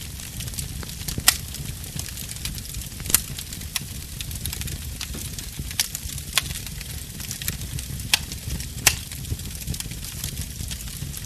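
Bonfire burning: a steady low rumble of flames under constant small crackles, with sharp louder pops about seven times.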